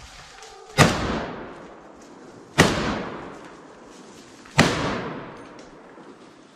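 Three rifle shots from a Browning MK3 Eclipse semi-automatic rifle in .300 Win Mag, fired about two seconds apart, each very loud and trailing off in a long echo.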